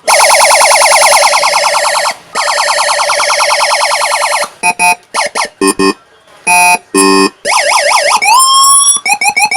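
Electronic police escort siren from a PIC-programmed siren module cycling through its tones. It plays a very fast warble with a short break about two seconds in, then a run of short stuttering blasts, then repeated rising sweeps, each about half a second long, near the end.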